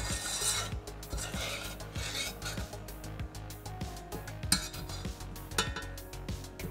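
Metal spoon scraping and clinking against the inside of a stainless steel saucepan as thick caramel sauce is stirred, with repeated rasping strokes and a sharp clink about four and a half seconds in.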